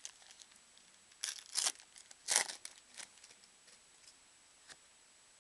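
Foil wrapper of a trading-card pack being torn open by hand, crinkling and tearing in a few short bursts, the loudest between about one and two and a half seconds in.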